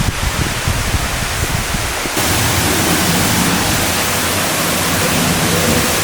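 Steady rush of water pouring down jungle cascades; about two seconds in it turns fuller and louder.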